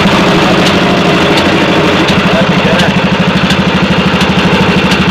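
Single-cylinder diesel tubewell engine (a 'Peter' engine) running steadily and driving the water pump, with a fast, even chugging. A light tick repeats about every three-quarters of a second.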